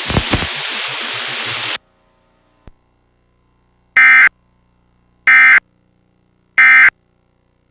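Hiss that cuts off abruptly about two seconds in, then three short, identical buzzy digital data bursts about 1.3 seconds apart: the Emergency Alert System's SAME end-of-message (EOM) tones closing a severe thunderstorm warning.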